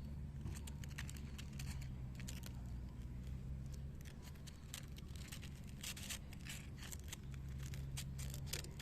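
Sandpaper rubbing in short, irregular scratchy strokes as a wiper motor's carbon brush is shaped by hand.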